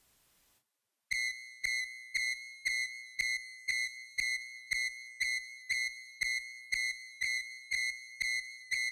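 A high electronic beep repeating evenly about twice a second, each beep starting with a click. It begins about a second in after a moment of silence.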